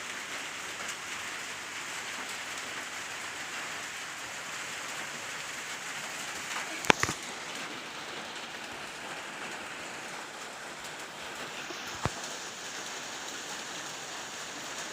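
Steady rain falling, an even hiss, with two short sharp knocks, one about seven seconds in and one about twelve seconds in.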